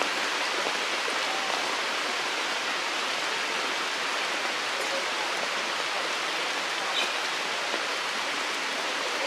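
Steady, even outdoor hiss, with a brief faint high chirp about seven seconds in.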